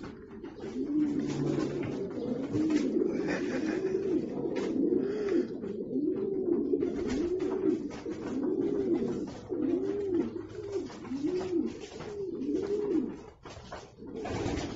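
A pigeon cooing over and over, one rising-and-falling coo a little under every second, stopping shortly before a brief noisy scuff near the end.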